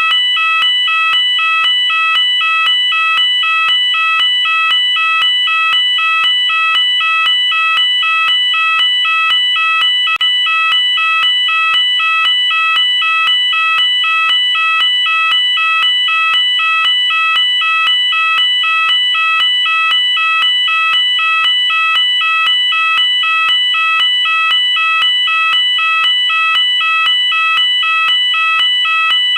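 UK fire alarm sounder going off continuously and loudly, warbling back and forth between two high tones in an even, unbroken pattern.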